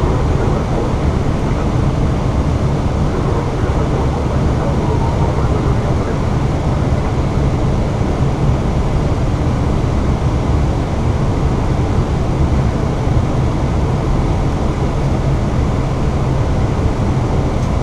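Steady cockpit noise of an Airbus A320 on final approach: an even rushing sound, heaviest in the low range, with no changes.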